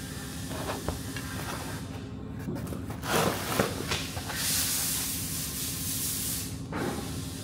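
Hissing jet of pressurised air or spray: a short burst about three seconds in, then a longer steady blast of about two seconds that cuts off sharply.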